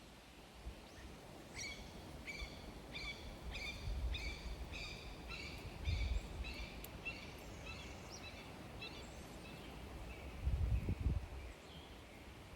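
A bird calling a long series of about a dozen repeated notes, roughly two a second, fading toward the end, over low wind rumble outdoors.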